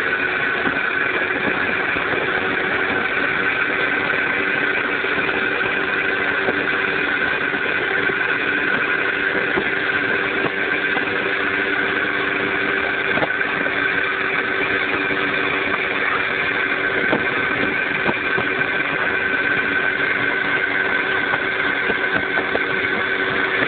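Small moped engine running at a steady cruising speed, a constant drone with a high whine above it, holding one pitch without revving up or down.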